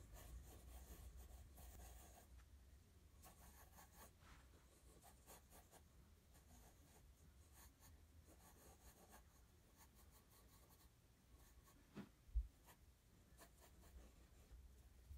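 Wooden graphite pencil scratching faintly on paper in light, repeated strokes as rough circles are sketched. Two soft knocks toward the end.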